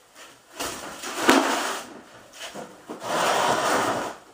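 Tools and objects being handled while searching for a ratchet: a sharp knock about a second in, then a longer scraping rub near the end.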